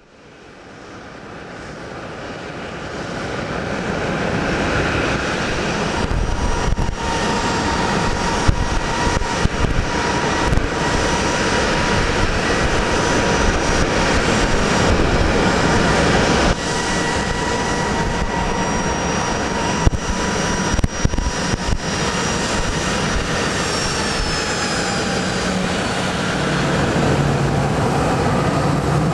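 Boeing 737's CFM56 jet engines running with a steady whine over the hiss of heavy rain as the airliner taxis on a soaked runway. The sound fades in over the first few seconds.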